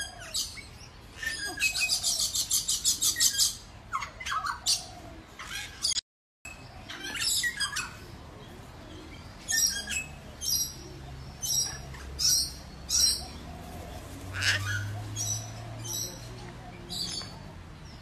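Birds calling: a fast, high, rapidly repeated trill lasting about two seconds, then many short high chirps and calls spaced through the rest. The sound drops out briefly about six seconds in.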